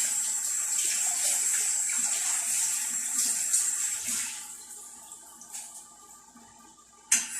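Water running steadily, tapering off after about four seconds, then a single sharp knock near the end.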